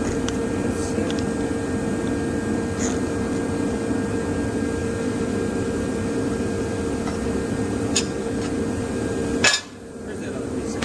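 Steady mechanical hum with a held tone, dotted with a few faint metallic clinks of metal pieces being handled; a sharp click about nine and a half seconds in, after which the hum cuts out.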